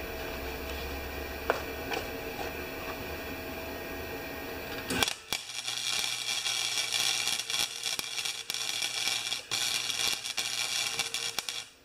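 Wire-feed welder arc crackling steadily as a bead is run on the thin transmission housing of a snowblower. The arc strikes about five seconds in, after a steady hum, and cuts off abruptly near the end.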